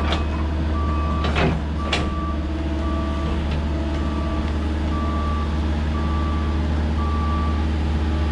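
Kobelco tracked excavator travelling, its travel alarm beeping about once a second over the steady drone of its diesel engine. Three sharp knocks sound in the first two seconds.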